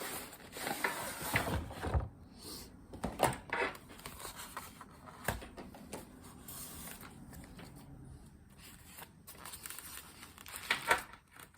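Rustling, crinkling and light clicks and taps of a model locomotive and its packaging being handled, with small plastic parts knocking.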